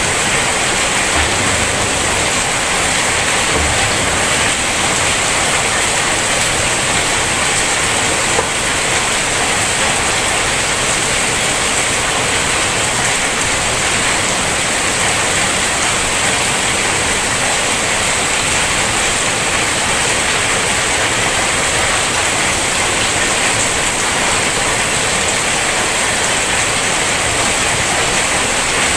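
Heavy rain pouring down: a loud, dense, steady hiss.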